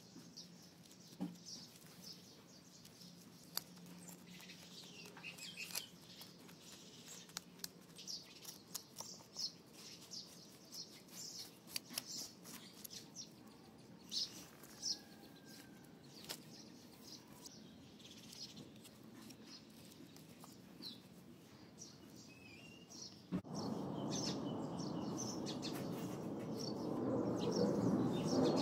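Small birds chirping in many short, high calls, with faint scattered clicks. About 23 seconds in, a louder steady rushing noise cuts in suddenly and grows louder near the end.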